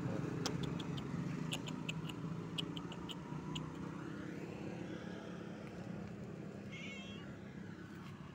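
A cat meows once, briefly, near the end, over a low steady rumble; a few light clicks come earlier.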